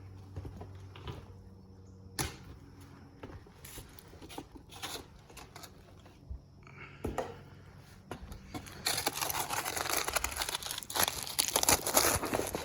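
A few scattered light knocks and rustles, then from about nine seconds a loud, dense crinkling and tearing rustle.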